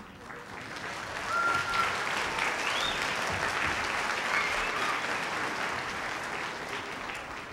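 Audience applauding, swelling over the first second, holding steady, then easing off near the end.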